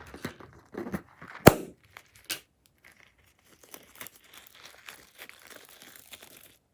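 Crunchy slime being handled, crackling and crinkling, with a sharp snap about one and a half seconds in and fainter crackling through the rest.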